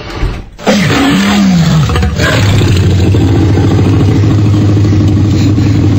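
An engine-like sound effect: it starts loudly about half a second in with a falling glide in pitch, then settles into a steady low drone.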